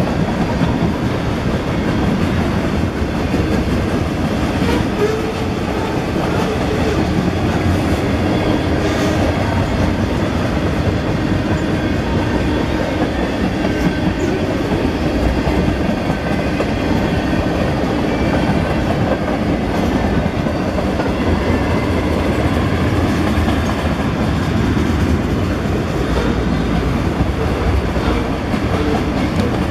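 Freight train cars (tank cars, boxcars and intermodal container cars) rolling steadily past at close range: continuous wheel-on-rail noise with a few faint clicks as the wheels pass over the track.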